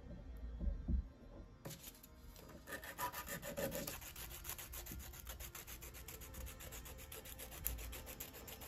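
A nail file rubbing back and forth over a fired silver-clay brooch in quick, even strokes. The strokes start about two seconds in, after a couple of knocks as the piece is handled. The fired silver is being filed smooth before polishing.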